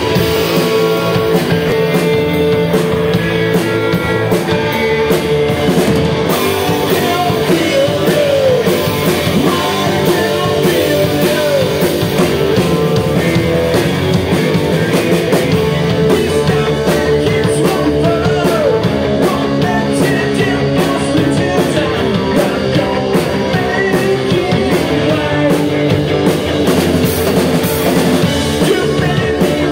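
Live rock band playing loudly and without a break: two electric guitars, a bass guitar and a drum kit.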